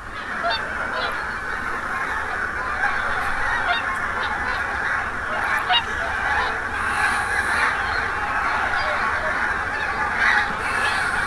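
A large flock of geese calling all at once: a dense, continuous chorus of overlapping honks that comes in abruptly and holds steady.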